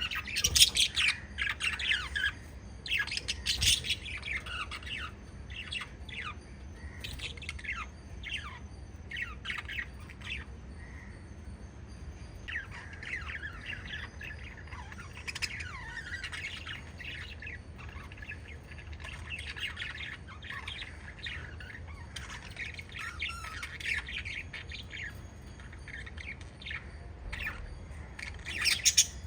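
Several lovebirds chirping and squawking in quick, overlapping calls, loudest in the first few seconds and again near the end.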